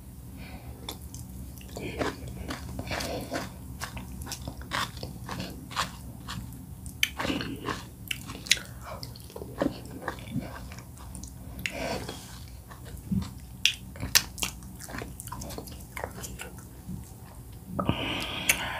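Close-miked eating sounds of oat fufu and bitterleaf soup eaten by hand: wet chewing and mouth clicks coming irregularly, over a steady low hum, with a brief louder pitched sound near the end.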